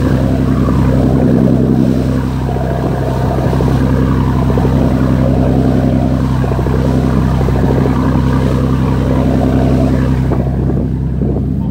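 A boat's engine running with a steady low drone, under water rushing and splashing along the hull as the boat moves.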